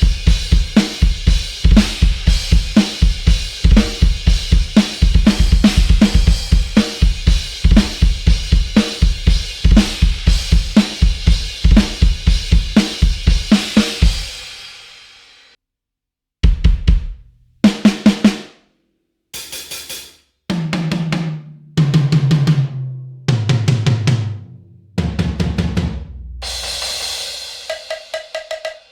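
Sampled drum kit from the EZdrummer 3 'Into the Dark' library, with the sound of dark rock and post-punk. For about fourteen seconds it plays a steady groove of kick, snare, hi-hat and cymbals, which then rings out. After a pause come separate short tom runs, each lower in pitch than the last, and a ringing cymbal hit near the end.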